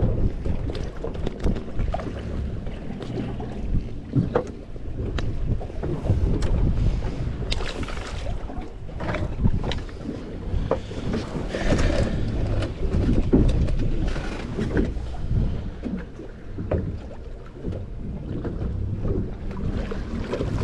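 Wind buffeting the microphone and water against the hull of a drifting small boat, with many small knocks and clicks from handling a fish, line and lure at the gunwale.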